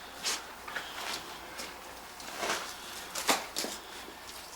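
A few faint, scattered knocks and clicks in a quiet room, like light handling of dishes and utensils.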